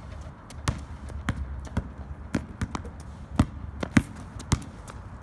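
Basketball bouncing on a concrete driveway as it is dribbled: a string of sharp, uneven bounces, roughly two a second, the loudest about three and a half and four seconds in.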